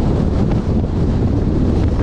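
Strong wind buffeting the microphone, a steady heavy low rumble.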